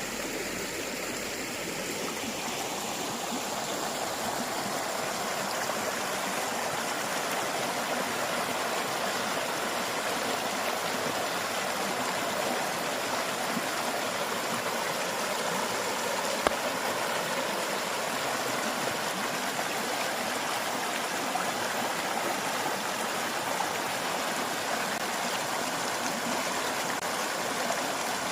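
River water flowing in a steady, unbroken rush. A single short click sounds about halfway through.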